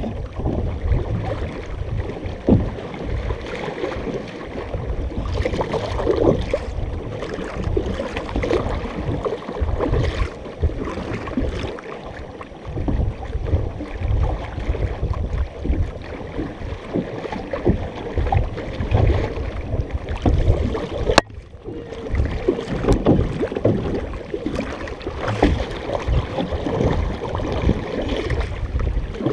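Several paddlers' strokes splashing and pulling through the water beside a large multi-seat canoe, with water rushing along the hull and a low rumble of wind on the microphone. One sharp click about two-thirds of the way through.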